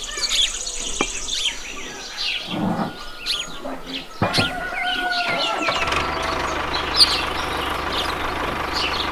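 Birds chirping throughout. About four seconds in there is a click, and a small electric motor in a miniature farm model starts up with a short rising whine, then runs steadily.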